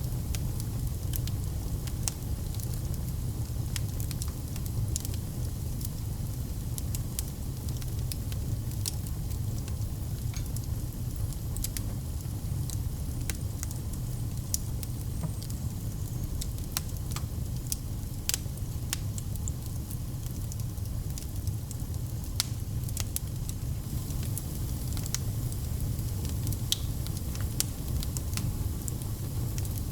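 Fire burning in a fireplace: a steady low rumble with scattered sharp crackles and pops throughout.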